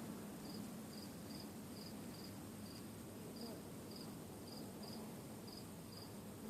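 A cricket chirping faintly, in short high chirps about two a second, some in pairs, over low outdoor background noise.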